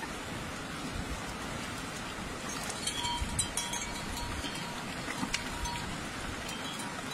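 Steady rush of river water, with sharp clicks and clinks and a faint ringing tone coming in about three seconds in.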